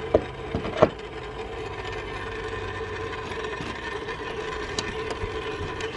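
Two sharp clicks as a knob on a 1960s Magnavox console is turned, then a steady scratchy hiss with a hum from the console's speaker as the radio broadcast drops out.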